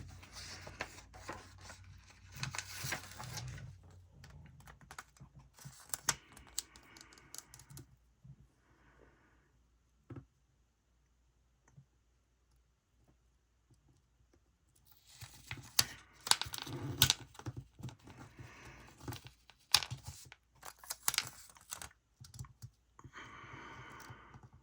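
Planner sticker sheets being handled and a sticker box peeled from its backing: soft rustling, crinkling and light clicks, in two spells with a quiet gap of several seconds between them.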